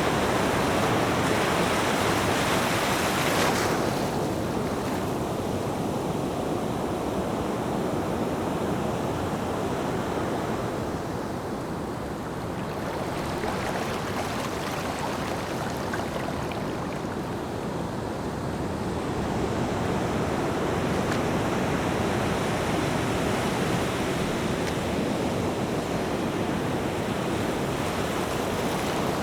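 Ocean surf washing ashore in a steady rush, swelling and easing slowly, loudest near the start; some wind noise on the microphone.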